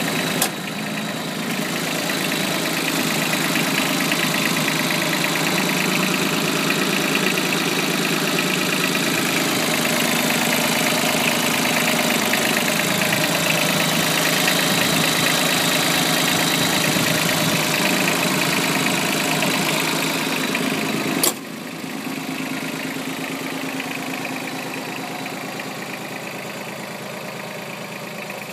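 Yanmar KE4 compact tractor's diesel engine idling steadily. There is a sharp click just after the start and another about two-thirds through, after which the engine is somewhat quieter.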